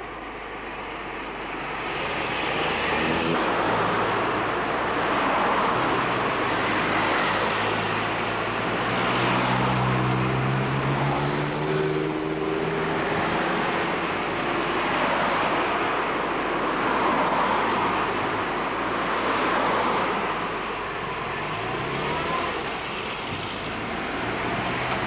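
Cars passing one after another close by on a road, engine and tyre noise swelling and fading several times. About ten seconds in, one car's engine hum stands out clearly as it goes past.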